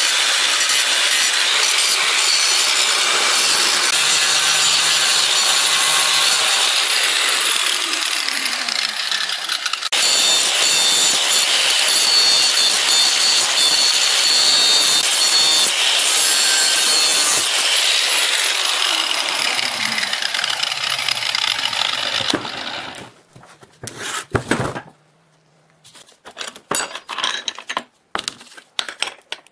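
A hand-held power tool running under load on a workpiece, giving a harsh, steady noise that breaks off for a moment about ten seconds in. It stops about 23 seconds in, and scattered light clicks and taps follow.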